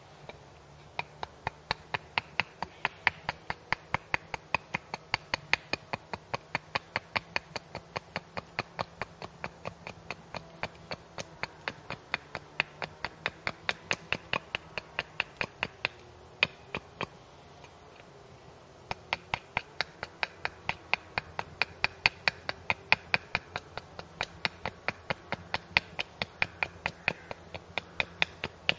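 Hatchet held choked up near its head making quick short chops into a wooden wedge blank on a chopping block: sharp wooden knocks about three a second, stopping for about two seconds past the middle before starting again.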